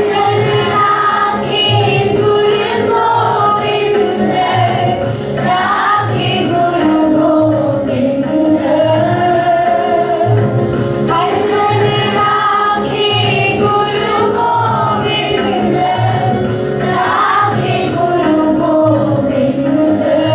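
A group of voices singing a Sikh shabad, a devotional hymn, in unison to a steady percussion beat.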